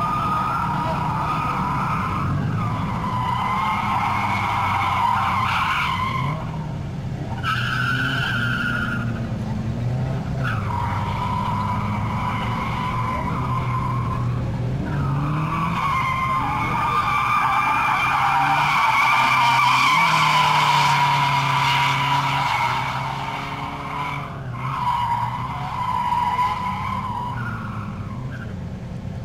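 Nissan Sil80 drifting: tyres squealing in long, wavering screeches that break off briefly a few times, over the engine revving up and down.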